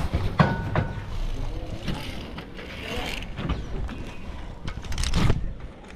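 Irregular metal clanks and clicks of zip-line gear, carabiners and pulley knocking on the steel cable, with a brief squeak near the start.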